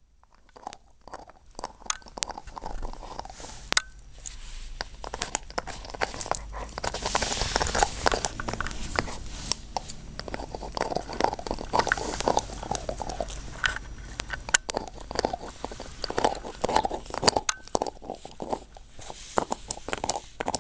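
Border collie gnawing a bone: a dense, irregular run of sharp crunches and clicks of teeth on the bone.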